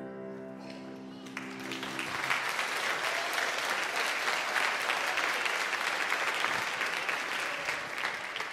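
The last held chord of a song dies away, and about a second and a half in, the audience breaks into applause. The clapping tails off near the end.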